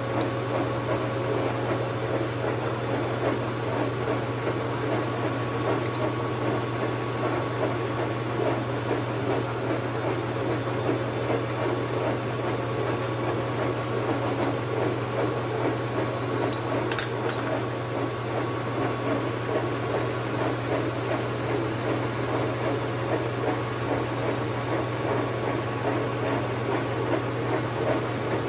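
Metal lathe running steadily, its cutting tool facing the spinning 4DR5 cylinder head: a rough scraping of the cut over a constant motor hum. A couple of sharp ticks about two-thirds of the way through.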